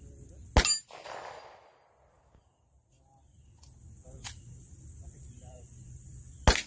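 Two gunshots about six seconds apart, each a sharp loud crack followed by a short echo, with a fainter crack between them.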